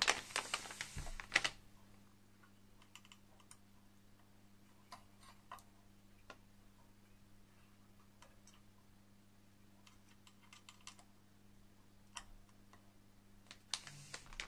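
Hands working a screwdriver and a CPU cooler's mounting hardware over a motherboard: scattered light clicks and taps, with a short rustle at the start and another near the end.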